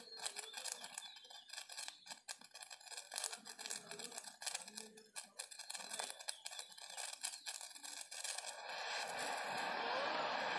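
Lit fuse of a wooden kathachakra firework crackling and sputtering in quick, irregular pops. From about eight seconds in, a hiss rises steadily as the firework catches and begins spraying sparks.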